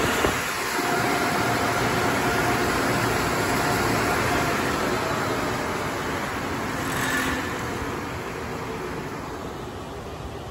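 Touchless car wash dryer blowers blowing air over the car, a steady loud rush of air that fades over the last couple of seconds.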